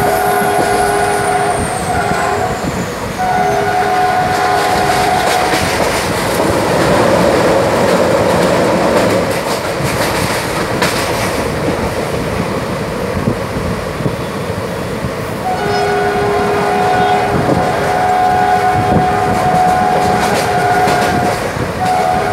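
Moving train's wheels and carriage running on the rails with a steady rumble and clatter. The multi-tone train horn sounds in several short blasts near the start, then in one long blast about two-thirds of the way through.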